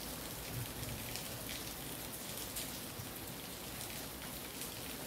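Steady rain falling on the trees and broad leaves of a garden, an even hiss with faint scattered drop ticks.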